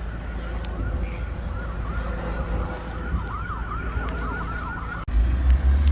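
A siren in a fast yelp, quick rising-and-falling sweeps about four a second, growing clearer through the middle and cutting off abruptly about five seconds in. A loud low rumble takes over at that point.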